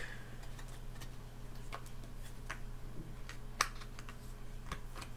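Clear plastic Blu-ray case being handled and opened: a scatter of light plastic clicks and taps, with one sharper click about three and a half seconds in.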